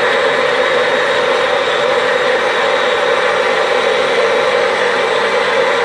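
Electric blender running steadily, its motor whirring as it blends banana with water.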